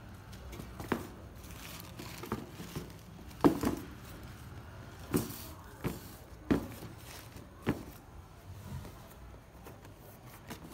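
Handling noise: sneakers being moved about and set down on a cardboard shoebox, an irregular series of knocks and rustles, the loudest about three and a half seconds in.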